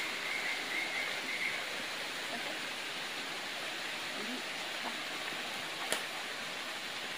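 Steady rushing of a forest stream and waterfall, an even noise with no break. There is one sharp click about six seconds in.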